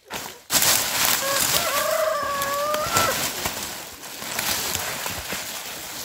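A rooster crowing once, a drawn-out call of about two seconds that lifts in pitch at its end, over a loud crackling noise that starts about half a second in.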